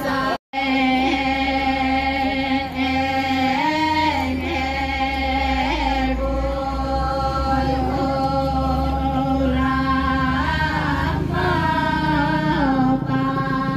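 A group of Toraja pa'katia dancers, women's voices, chanting together in long held notes that glide up and down now and then. The sound drops out for a split second about half a second in.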